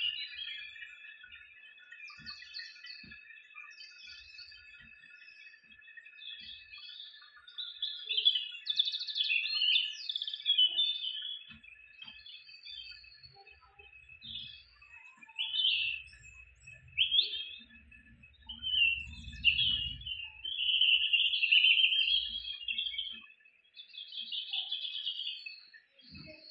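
Birds chirping and twittering in quick, sweeping bursts, over a steady high trill.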